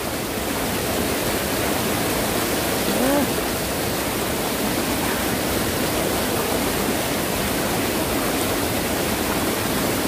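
Mountain stream swollen into a flood by days of typhoon rain, its white water rushing over rocks in a steady, loud, unbroken noise.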